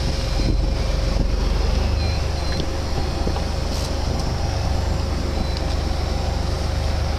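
Fishing boat's engine running steadily, a low drone with a faint steady hum above it.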